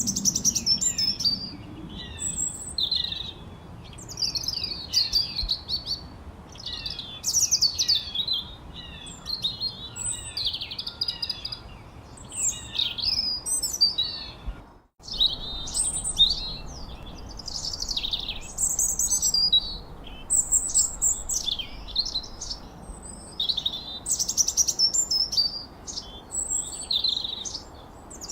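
Songbirds chirping and whistling in quick, overlapping phrases over a faint steady background hiss. The sound cuts out for a split second about halfway through.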